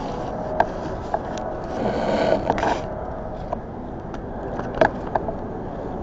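Objects being handled and moved on a tabletop: a scrape about two seconds in and several sharp clicks and knocks, over a steady hum with a faint steady tone.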